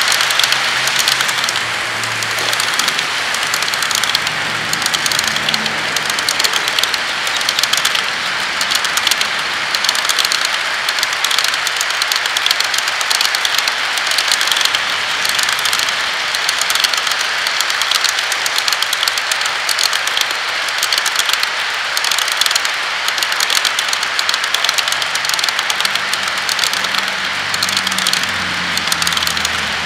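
HO-scale model freight cars rolling past in a long string on the track: a steady rattling clatter of many small wheels with fine, rapid clicks. A faint low hum comes in near the start and again near the end.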